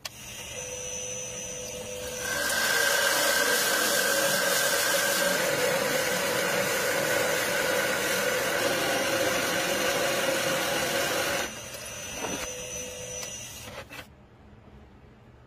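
Wood lathe spinning a wooden bowl while a large boring bit in the tailstock cuts into its centre: a loud, steady cutting hiss over a steady motor whine, starting about two seconds in. The cutting stops about three-quarters of the way through, the whine carries on more quietly for a couple of seconds, then the sound dies away near the end.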